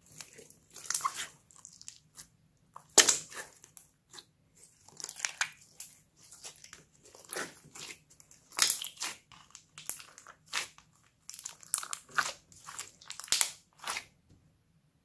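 Hands kneading, pressing and folding a large ball of glossy slime: irregular sticky clicks, pops and squelches, loudest about three seconds in, stopping shortly before the end.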